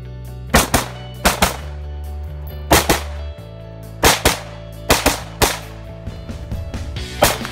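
Scoped semi-automatic rifle firing about nine shots in quick succession, several as fast pairs, over background music.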